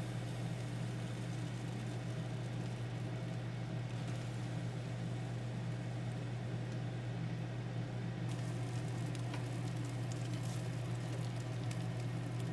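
A kitchen appliance running with a steady low electrical hum under a faint hiss, with a few light clicks.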